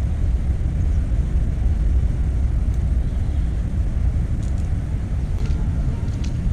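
Steady low rumble of wind buffeting the microphone, wavering in strength, with a few faint clicks near the end.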